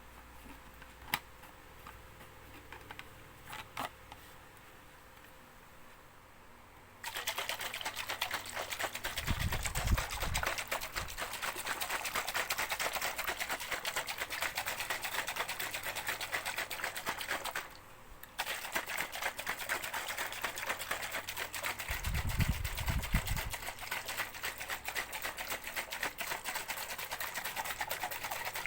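A shaker shaken hard and continuously, giving a dense, fast rattle. It starts about a quarter of the way in after a few faint clicks, stops for a moment about two-thirds through, then resumes, with a couple of low thumps along the way.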